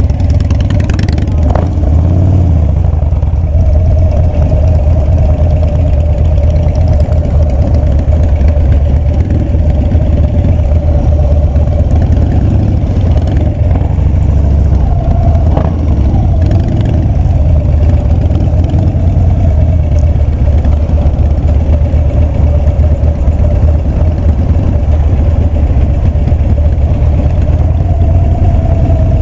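Harley-Davidson Street Bob's V-twin engine running steadily at low revs, a deep even rumble.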